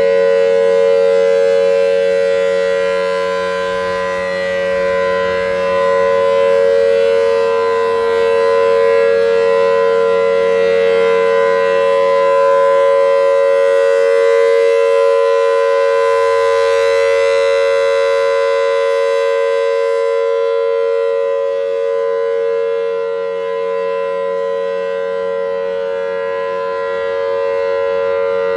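Federal Signal Thunderbolt 1000T supercharged civil defense siren sounding its full alert signal: a loud, steady two-note tone held at constant pitch, swelling and fading gently in loudness as the rotating horn sweeps around.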